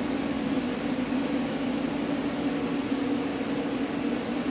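Steady machine hum with a low drone from a powered-up Miyano BNE-34S2 CNC lathe, running evenly without change.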